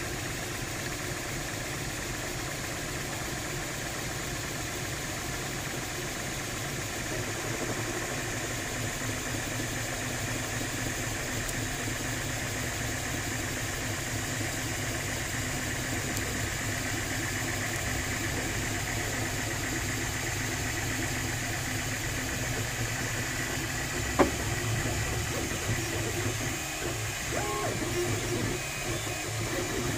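MakerBot 3D printer running a print: a steady hum of the extruder's cooling fan and stepper motors as the print head moves. There is a single sharp click about two thirds of the way through, and the motor tones shift near the end.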